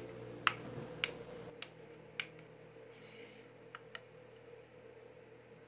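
Scattered light clicks and taps of fingers handling the plastic case of a power bank, with two clicks close together about four seconds in as its side power button is pressed.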